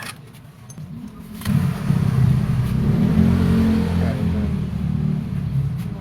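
A motor vehicle engine running and revving, starting about a second and a half in and easing off toward the end.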